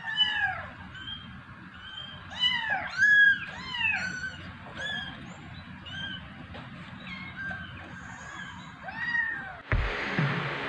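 A kitten meowing repeatedly, about a dozen short meows that each rise and fall in pitch. Near the end the sound switches abruptly to a steady hiss with a few low thumps.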